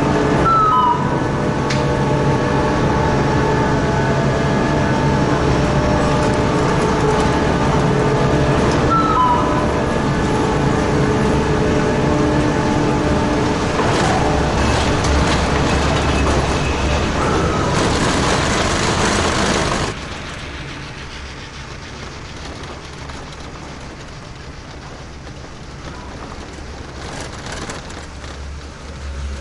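Machinery of a Taiyo Sakudo detachable quad chairlift running: a loud, steady mechanical hum with several held tones and a few short squeals. About two-thirds of the way in it drops off abruptly to a much quieter rushing noise.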